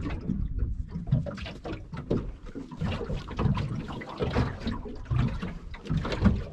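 Water slapping against the hull of a small aluminium boat, giving irregular low knocks and splashy noise.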